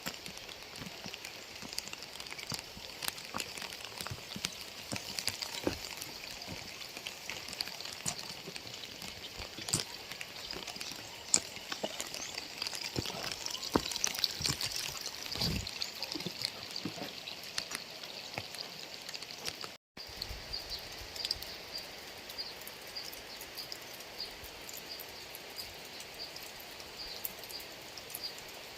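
Steady rain falling, with many individual drops tapping close by. The sound cuts out for an instant about two-thirds of the way through.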